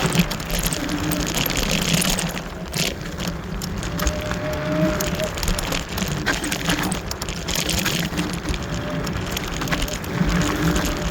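Wolf Warrior electric scooter ridden over a dirt trail: a steady rough rush of tyre and wind noise with scattered clicks and rattles, and a faint motor whine that swells and fades every few seconds.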